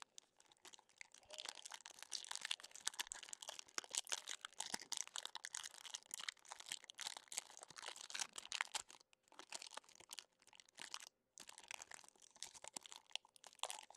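Clear plastic wrapping from a pack of trading cards being torn and crinkled by hand: a dense, continuous crackle with a brief pause near the end.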